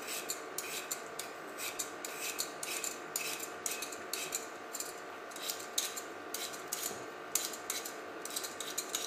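Metal Y-shaped vegetable peeler scraping the skin off a raw potato in quick repeated strokes, about two a second, each a short rasp.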